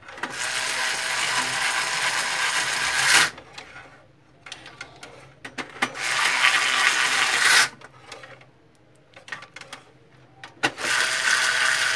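Screws being driven in with a screwdriver while the formatter board is fastened into an HP LaserJet 1320. Three runs of a few seconds each, the first about three seconds long, with small clicks and handling noises between them.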